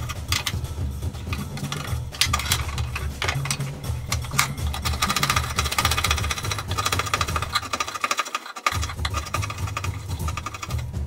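Hand file rasping back and forth over a wooden hatchet handle, a steady run of quick scraping strokes as the handle is shaped to fit the head.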